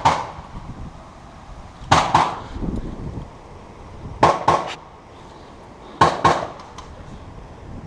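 Airsoft guns firing short bursts of one to three sharp snaps, about every two seconds.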